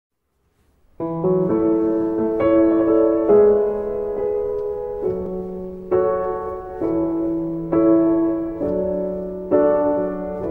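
Background piano music starting about a second in, with a new chord or note struck roughly once a second.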